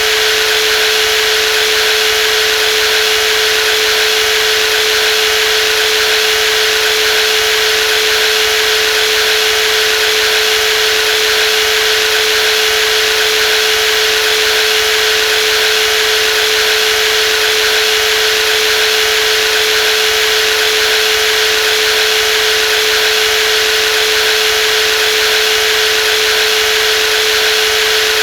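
Brushless jigsaw running continuously at an unchanging speed: a steady whine with one strong tone over an even hiss.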